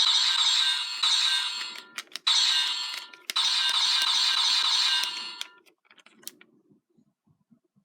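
Electronic sound effects played through the small speaker of a Gokaiger Memorial Edition Gokai Saber/Gun roleplay toy. They come in two long stretches with a short break about two seconds in, and cut off about five and a half seconds in, followed by faint handling rustles.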